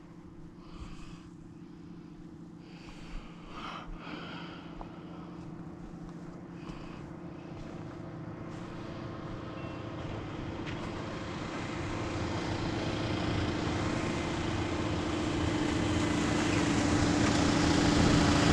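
A motor vehicle's engine drawing steadily nearer, a constant drone with rising hiss that grows louder throughout.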